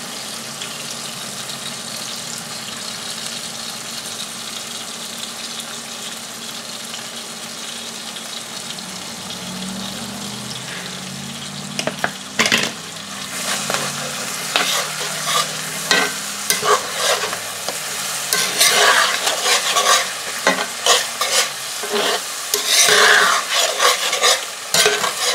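Mushrooms and sun-dried tomatoes frying in oil in a cast-iron skillet, sizzling steadily. About twelve seconds in, a metal spatula starts stirring and scraping against the pan in repeated strokes, louder than the sizzle.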